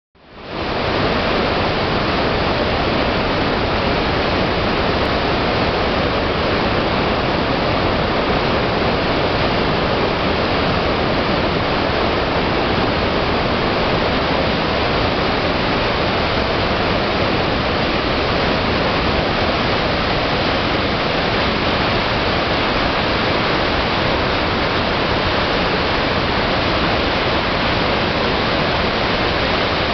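River water pouring over a dam spillway and churning in the white water below: a loud, steady rush that fades in over the first second.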